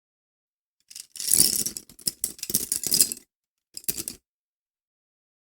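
Wooden pencil dropped onto a hard surface, clattering and bouncing in a quick run of clicks for about two seconds, then a brief second clatter about half a second later.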